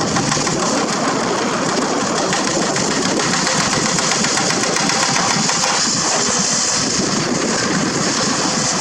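Diesel engine of a hydraulic excavator running steadily, with a constant high hiss over it.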